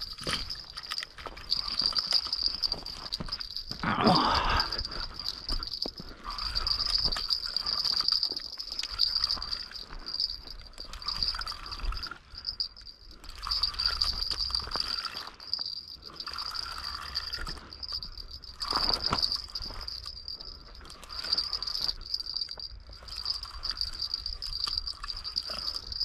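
Steady high-pitched insect trill, likely crickets, swelling and fading every few seconds, with two louder rushes of noise about 4 and 19 seconds in.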